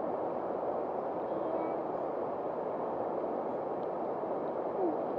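Steady rush of shallow river water flowing past, heard close to the water.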